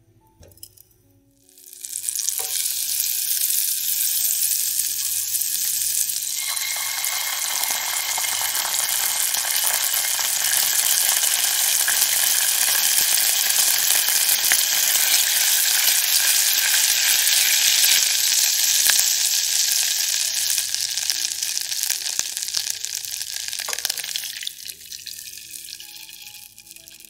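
Butter sizzling as it melts and foams in a hot nonstick saucepan. The sizzle starts about two seconds in, grows fuller a few seconds later, and fades out near the end as cold milk is poured into the pan.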